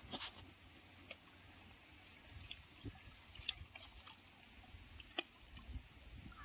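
Water dripping and trickling off a fishing net as it is lifted from the water, with a few sharp clicks, the loudest about three and a half seconds in.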